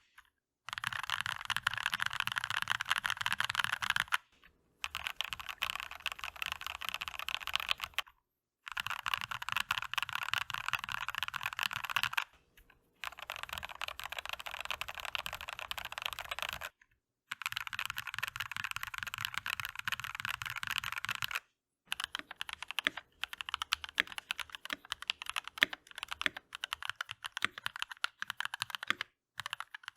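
Typing on a Keychron V1 mechanical keyboard with DCX keycaps: dense, fast runs of keystrokes in several stretches cut apart by brief silences. In the last third the keystrokes come slower and more spaced out.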